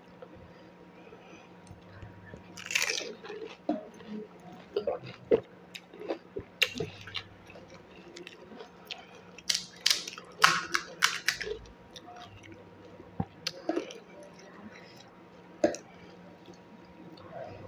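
Close-up crunching and chewing of panipuri (golgappa): crisp, water-filled puri shells cracking in irregular bursts with wet mouth sounds. The crunching is densest about ten to eleven seconds in.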